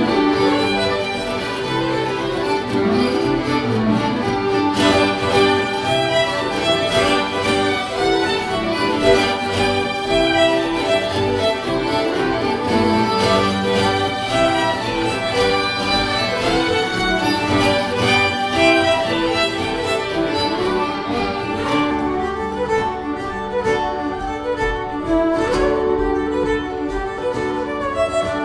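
Two fiddles bowing a fiddle tune together over strummed acoustic guitar backing, playing without a break.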